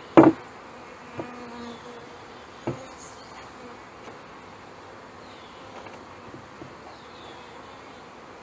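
Honey bees buzzing steadily around an open hive, with a sharp knock just after the start as the sheet-metal-covered hive lid is set down, a short metallic scrape as it is slid into place, and a second lighter knock a little later.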